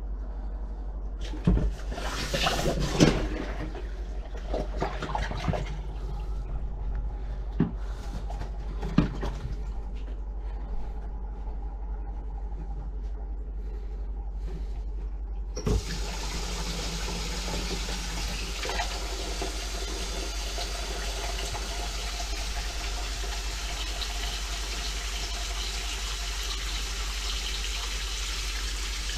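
Bellows plunger working a clogged stainless kitchen sink: a few wet splashing, sucking strokes in the first several seconds. About halfway through, after a click, water starts running steadily from the tap into the now-drained sink.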